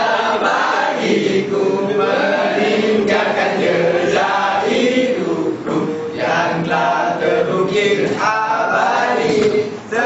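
A group of students singing together in a chant-like unison, with a brief break just before the end.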